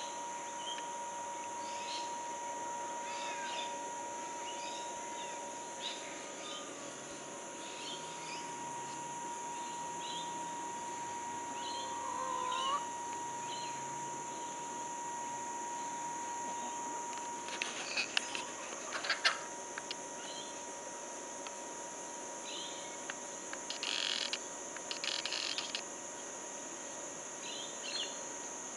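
Outdoor garden ambience: a steady high insect drone with many short bird chirps scattered throughout. A steady thin tone runs under it until a little past halfway, and a few brief bursts of rustling or crackling come about two-thirds of the way in and again a few seconds later.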